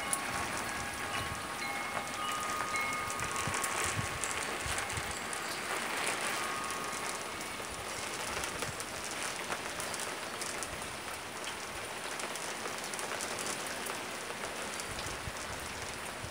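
Rain falling steadily on a wet wooden deck, a continuous hiss with fine patter of drops. Metal tube wind chimes ring a few notes in the first few seconds, then fade under the rain.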